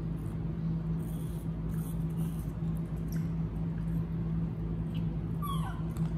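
A baby monkey gives one short squeak that falls steeply in pitch near the end, over a steady low hum and faint rustling of animals eating from small plates.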